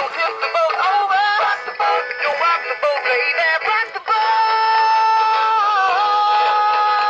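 Animatronic singing rainbow trout playing its song through its built-in speaker: a synthetic-sounding sung melody that, about four seconds in, changes suddenly to a long held note dipping slightly in pitch near the end.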